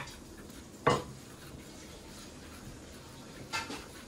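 A few light clattering knocks of small hard objects being handled, like toy dishes or utensils. The loudest comes about a second in, and a short cluster follows near the end.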